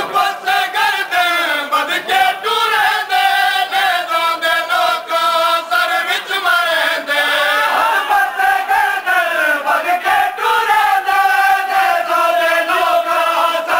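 Men's voices chanting a noha (Shia lament) together, with a steady beat of sharp strikes running under the chant.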